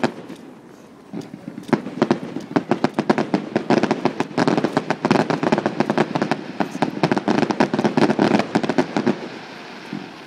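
Fireworks display: a dense, rapid run of crackling reports that starts about a second in, thickens into a continuous crackle, and thins out near the end.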